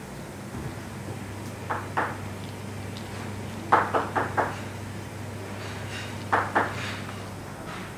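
Kitchen work: sharp knocks in short pairs and clusters, about three groups, over a steady low hum.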